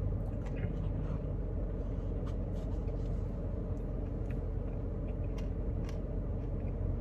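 Steady low hum with faint, scattered short clicks and taps.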